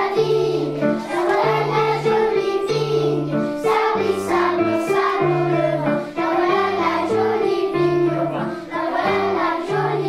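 A class of young children singing a song together in unison, over a low instrumental accompaniment of held bass notes.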